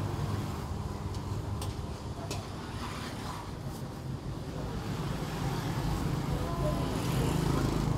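Street background noise: a steady low rumble of traffic, slightly louder in the second half, with a few light clicks.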